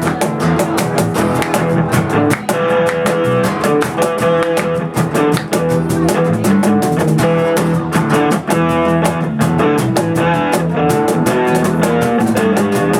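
A live band playing the instrumental opening of a rock song: strummed guitar over a drum kit keeping a steady, fast beat.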